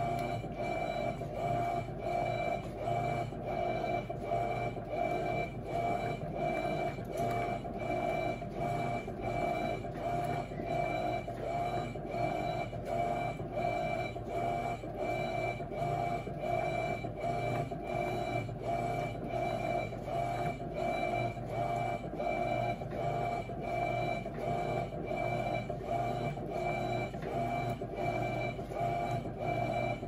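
Electrolux top-loading washing machine agitating clothes in soapy water: the motor runs with a steady whine while the agitator churns back and forth in an even rhythm, a little faster than once a second.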